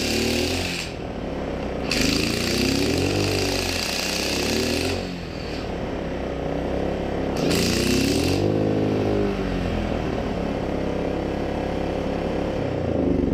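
Small Yardworks 1000 W generator running while an electric impact wrench plugged into it is triggered in three bursts: about a second at the start, about three seconds from two to five seconds in, and a short one near eight seconds. The generator engine's pitch rises as it takes up the wrench's load and falls back between bursts.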